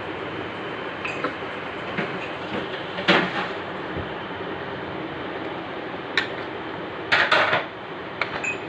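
Metal utensils clattering against a cooking pot a few times, with a louder run of clatters near the end, over a steady rushing background noise.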